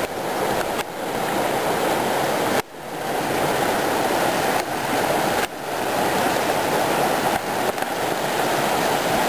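Steady rush of river water from the East Fork of the San Gabriel River.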